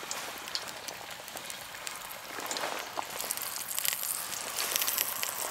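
Halved potatoes sizzling in hot oil in a cast-iron Dutch oven: a steady hiss with scattered pops, getting louder about two and a half seconds in.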